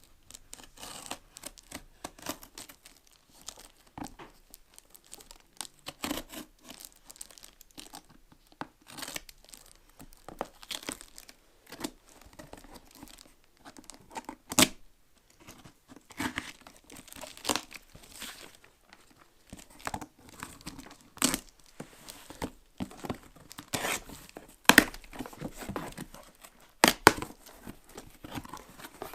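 Parcel packaging being torn open and handled: irregular tearing, rustling and crinkling, with several sharp clicks or snaps scattered through it.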